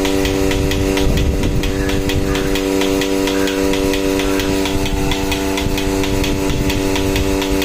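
Portable milking machine running while milking a cow: the vacuum pump's electric motor hums steadily, with a rapid, regular clicking over it.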